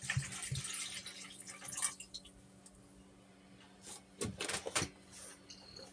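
Water splashing and trickling in a countertop dishwasher's tub while its drain pump is being tried, over a low steady hum; a few knocks from handling the machine come about four seconds in.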